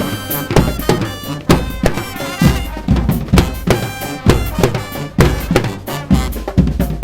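Brass street band playing: horns over a steady bass drum and snare beat.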